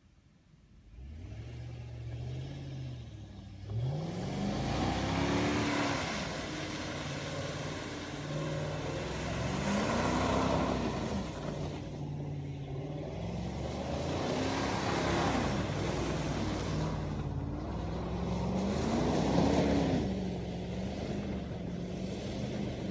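Nissan Patrol SUV's engine, heard from a distance, revving up and falling back in four or five surges as it is driven and drifted through wet mud, with its wheels spinning and throwing mud.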